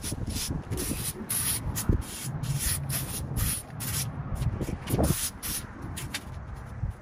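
Leaf rake scraping cut grass clippings across a concrete driveway in quick repeated strokes, which thin out and stop near the end.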